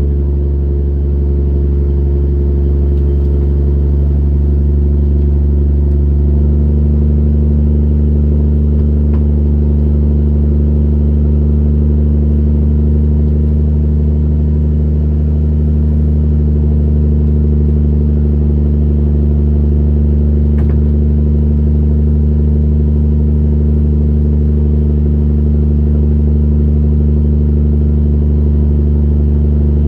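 A fishing trawler's diesel engine running steadily with a low, even drone, its note shifting slightly about six seconds in.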